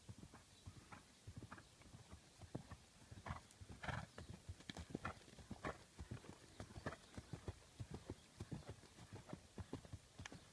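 Faint hoofbeats of a barefoot (just unshod) horse trotting on hard, uneven grass ground: a quick run of dull knocks, loudest around the middle as the horse passes close.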